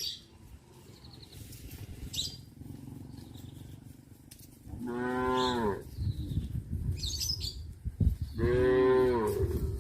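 Cows mooing: a long, drawn-out moo about halfway through, then a louder, longer one near the end.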